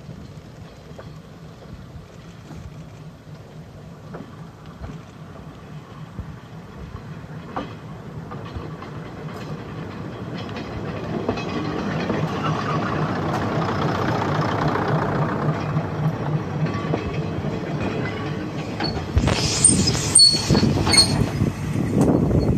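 Old single-car diesel railcar (ex-JNR KiHa 10 type) running, its engine and wheels growing louder as it approaches and passes close by. Near the end the brakes squeal sharply as it comes to a stop.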